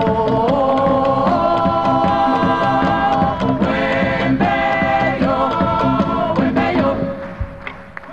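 Latin American folk orchestra with voices in harmony holding long chords over a steady accompaniment. The music fades away about seven seconds in.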